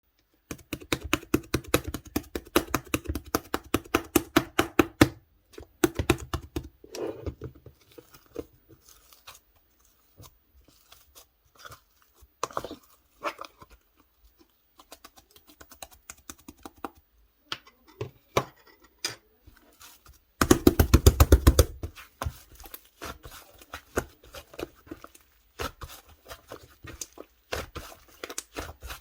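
Slime being pressed and kneaded by hand, giving quick runs of small wet pops and clicks. The pops come thick and fast at the start and again about twenty seconds in, and are sparser and fainter in between.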